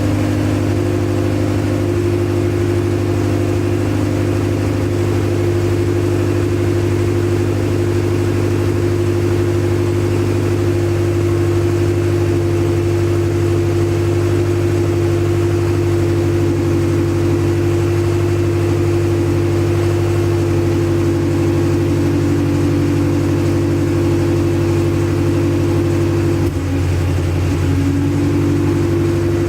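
Acura Integra engine running steadily at idle on its first start after a crank-no-start problem, with a brief change in its note near the end.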